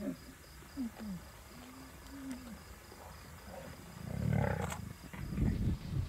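Lion cubs growling as they feed on a kill: several short growls, then a louder, rougher growl about four seconds in.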